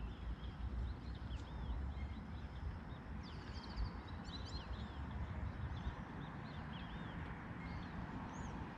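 Many small birds chirping in short, quick, high calls, busiest about halfway through, over a steady low background rumble.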